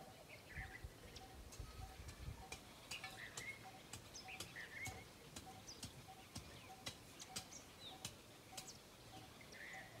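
Faint outdoor bird ambience: short bird chirps now and then over a steady repeated short note about twice a second, with scattered small clicks.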